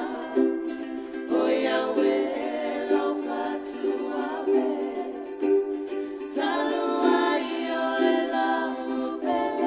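Background music: a plucked string instrument playing, with a singing voice coming in and out.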